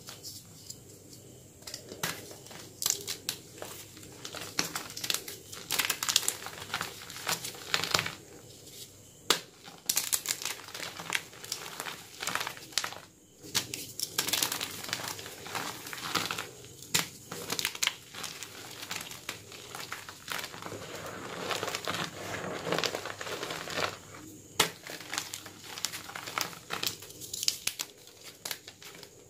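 Homemade gym chalk blocks being crushed and crumbled in bare hands: irregular runs of crackling and crunching as the chalk breaks apart, with short pauses between squeezes.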